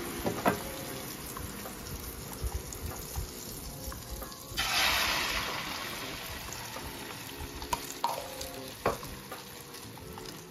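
Butter and egg sizzling in the hot cooking pot of a Ninja Foodi Grill, with a louder surge of sizzling a little before the middle. A few light knocks come from bread and cheese being laid in the pot.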